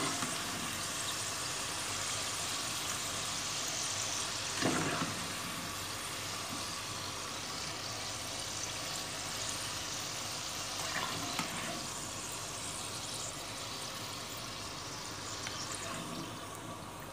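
Potato fries sizzling in hot oil in a frying pan, a steady hiss. A few light knocks, about five seconds in and twice around eleven seconds, come from a metal slotted spatula against the pan as the finished fries are lifted out.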